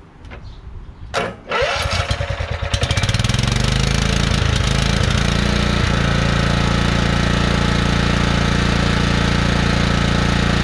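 Lawn tractor's small gasoline engine cranked by its starter: about a second in the starter kicks in, it cranks for a second or two, catches about three seconds in and then runs steadily.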